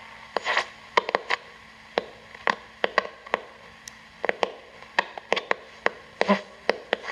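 Panasonic RF-562D portable radio's speaker giving shortwave static between stations as the dial is tuned: a faint hiss broken by irregular sharp crackles, several a second, with a few brief chirps.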